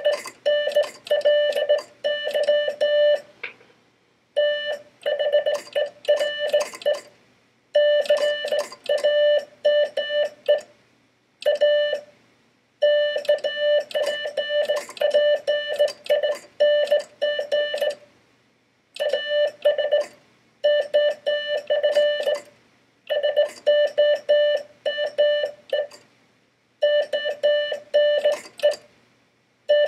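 Morse code sent by hand on a Vibroplex semi-automatic bug key: a steady mid-pitched beep keyed into rapid dots and longer dashes, in runs of a few seconds broken by short pauses between words, with sharp clicking along with the keying.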